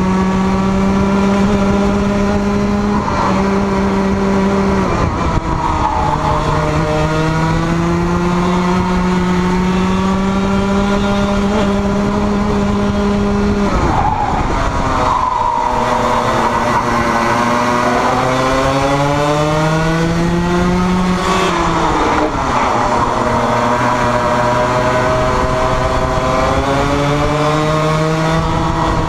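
Racing kart engine at speed, heard onboard: its pitch climbs slowly along the straights and drops sharply when the driver lifts off for corners, most clearly about halfway through and again about three quarters through.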